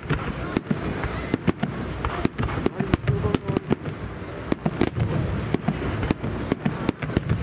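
Starmine fireworks display: a quick, irregular run of launch thumps and shell bursts, a few bangs a second, over a continuous low rumble.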